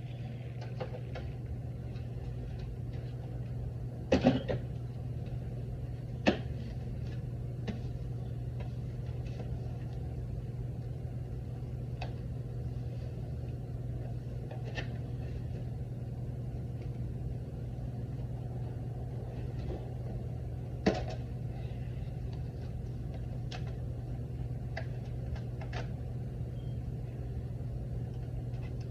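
Blu-ray/DVD player mechanism humming steadily, with a few sharp clicks and clunks. The loudest is a quick double clunk about four seconds in, and single clicks come near six and about twenty-one seconds in.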